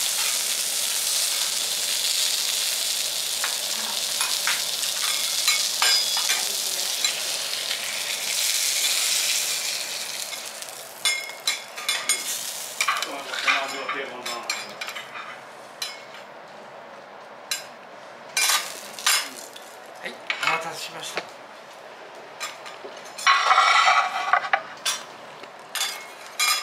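Wagyu beef tenderloin cubes sizzling in fat on a steel teppanyaki griddle, with a knife tapping the steel. After about ten seconds the sizzle dies down, and sharp clicks and scrapes of the metal spatula and knife on the griddle and plate take over, with a louder scrape near the end.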